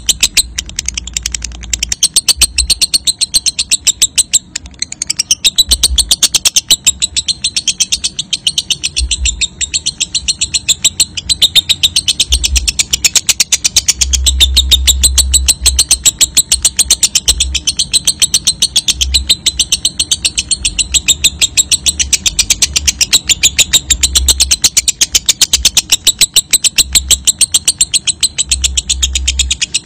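Lovebird giving a long, unbroken 'ngekek' chatter: a very rapid, high-pitched rattling run of notes that hardly pauses.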